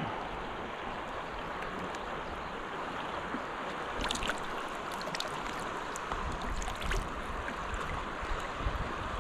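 River water rushing steadily past, with a few faint ticks and light splashes around the middle. Wind starts buffeting the microphone in the second half.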